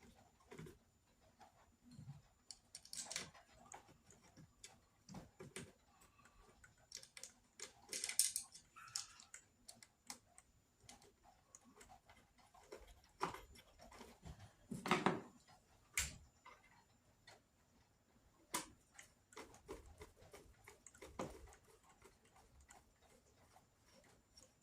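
Scattered small clicks and light knocks of screws and plastic vacuum parts being handled, with louder rustling scrapes about 8 and 15 seconds in.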